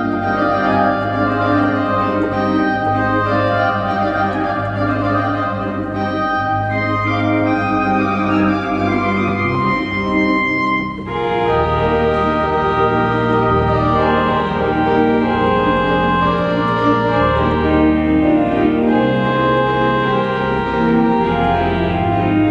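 Organ music: slow, sustained chords over long-held bass notes. About halfway through the chord changes after a brief dip, and from then on the bass notes move every second or two.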